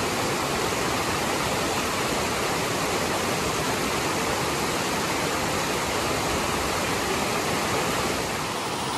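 Rain-swollen stream rushing steadily, its flow raised by a day of heavy rain.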